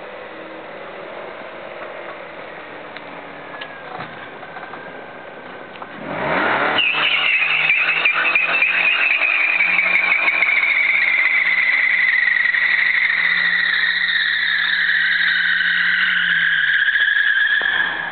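Opel Vectra 1.8 16V four-cylinder engine running at low revs, then revved hard about six seconds in and held high while the front tyres spin in a burnout with a loud, high tyre screech that slowly drops in pitch. The revs and the screech fall away just before the end.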